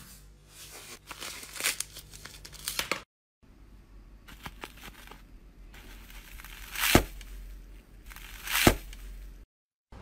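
Slime being pressed and pulled apart by hand, giving crinkling, tearing crackles, with two sharp, louder crackles in the second half. The sound drops out for a moment about three seconds in and again near the end.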